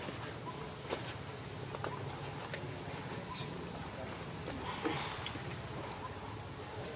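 Steady insect chorus of crickets or cicadas: two continuous shrill, high-pitched tones, with a few faint scattered clicks.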